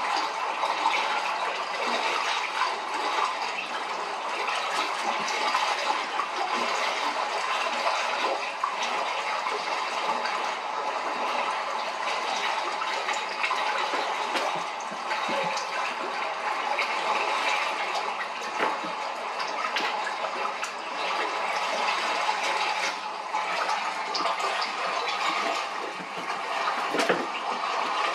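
Steady rushing, bubbling water sound from a television playing an underwater fish video, with a few brief clicks, one clearer near the end.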